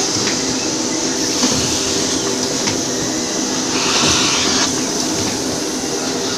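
Automatic sheet-fed screen printing machine for paper running: a steady mechanical hum and clatter, with a brief hiss about four seconds in.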